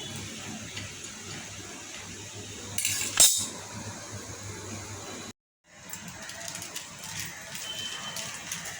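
Metal utensils clinking against cookware over a steady low hum, with the loudest sharp clink about three seconds in. There are lighter clicks in the second half.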